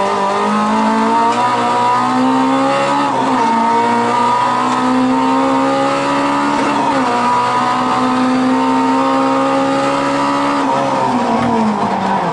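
Rally car engine heard from inside the cabin, pulling hard through the gears. The revs climb, drop sharply with an upshift about three seconds in and another about seven seconds in, keep rising, then fall off near the end.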